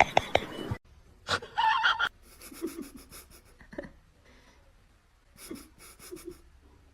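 A fast run of even clicks stops abruptly just under a second in. Then come a few short, faint bursts of breathy panting.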